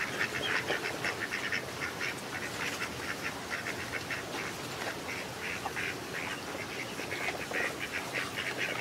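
Whistling ducks calling: a continual chatter of many short, rapid calls, several a second, as from a flock.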